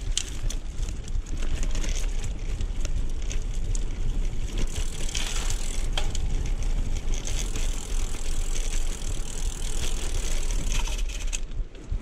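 Carraro 062 road bike rolling over a rough concrete path on narrow 25 mm road tyres: steady tyre rumble with irregular small rattles and clicks over the bumps, and wind rumbling on the microphone.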